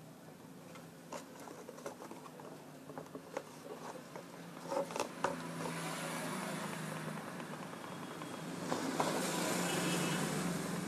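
Sharp clicks and taps of a finger pressing the push buttons on an induction cooker's control panel, testing the minus switch after its broken mounting base was repaired. A rushing noise comes in about halfway through and swells to its loudest near the end.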